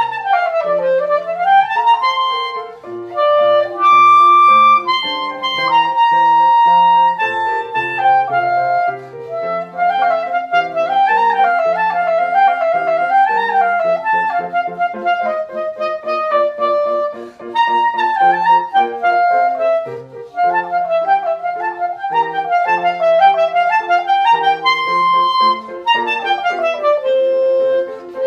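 Clarinet playing a lively melody of quick runs and turns that climb and fall, over lower held notes of an accompaniment.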